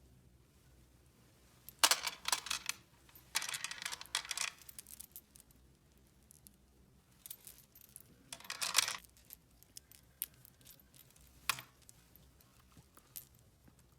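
Small hard objects being handled by hand, clicking, clattering and rustling in four short bursts, the last a single sharp click.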